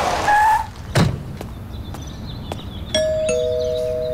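Two-tone ding-dong doorbell chime about three seconds in: a higher note, then a lower one a third of a second later, both ringing on. Before it, a car's noise fades out in the first second, and there is a single sharp thump about a second in.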